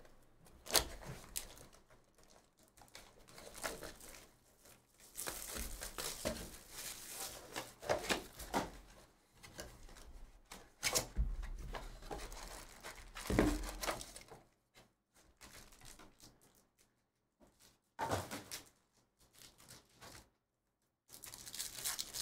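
Hands opening a cardboard trading-card box and handling the foil-wrapped card packs inside: cardboard tearing and scraping, wrapper crinkling and light knocks, coming in irregular bursts. Near the end a foil pack is torn open.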